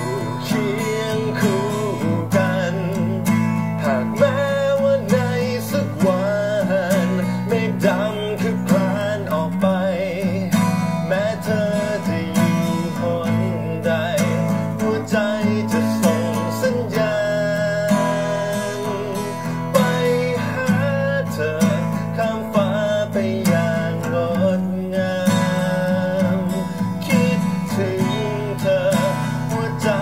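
Acoustic guitar strumming chords steadily, with a man singing a melody over it.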